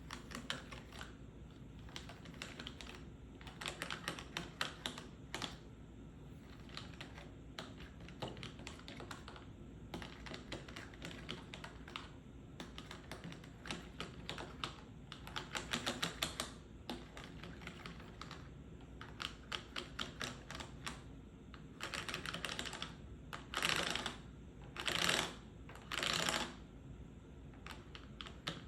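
Quick, light tapping on a medicine pill box in rapid runs of clicks, with three louder, longer noisy bursts near the end.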